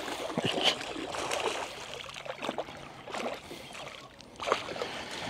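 Irregular light knocks and clicks with rustling and water sloshing, the handling sounds of fishing tackle at the water's edge.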